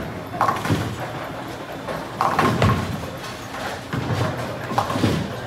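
Bowling alley lanes: bowling balls thudding and pins crashing in a series of separate clatters, the longest about two seconds in.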